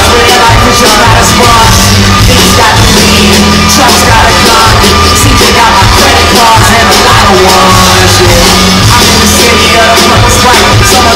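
Live concert music played very loud through the venue's sound system, with a heavy bass beat, a lead vocal and crowd yelling, recorded close to full scale on a phone.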